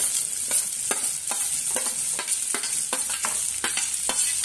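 Chopped onions sizzling as they drop into hot butter and oil with fried garlic and ginger in a non-stick kadhai. A steel spoon taps and scrapes against a steel plate about two to three times a second as the onions are pushed off.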